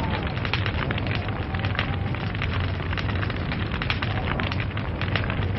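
Fire crackling, with dense, irregular snaps and pops over a steady rushing noise.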